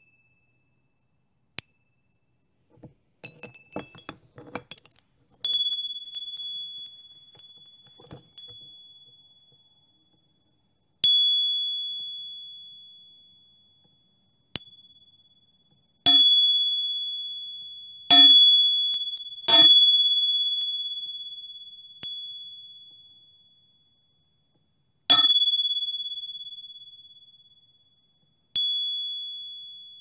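Small high-pitched bells struck one at a time, about a dozen strikes, each a sharp ding that rings out and fades over two or three seconds, with a quick run of light tinkles a few seconds in.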